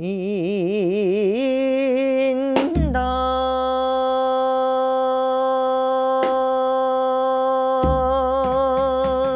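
A woman's solo voice singing pyeongsijo, Korean classical sijo song. She sings a note with wide, slow vibrato, steps up in pitch about a second and a half in, then holds one long, nearly steady note that stops at the very end.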